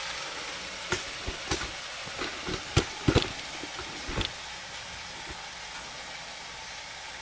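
Ribeye steaks searing in a hot nonstick pan: a steady sizzle, with a run of sharp pops and clicks between about one and four seconds in, the loudest a little before the three-second mark.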